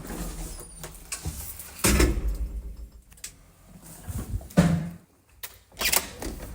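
A door being gone through: several loud clunks and knocks a couple of seconds apart, over a low rumble.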